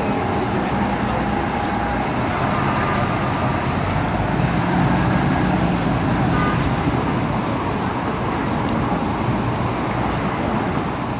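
Busy city intersection traffic: many vehicles running and passing in a dense, loud, steady wash of noise, with an engine hum swelling in the middle.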